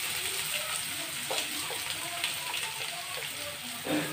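Chopped onions sizzling in hot oil in a frying pan, a steady hiss, as they are tipped in for tempering.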